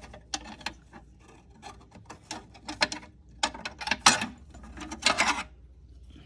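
Metal transmission parts being handled: a run of clicks, knocks and scraping, loudest and busiest from about three and a half to five and a half seconds in.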